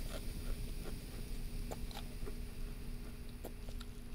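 ASMR mouth sounds made against a filled blue disposable glove held at the lips: scattered small wet clicks, several in a few seconds, over a steady low hum.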